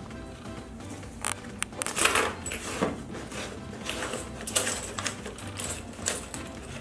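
Irregular rustles and clicks of handling around a money counting machine, over a low steady hum.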